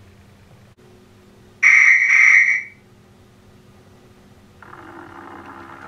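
A shrill railway whistle blows about a second and a half in, two quick blasts lasting about a second in all, as the model steam train is about to depart. Near the end a steady mechanical running sound starts as the train moves off.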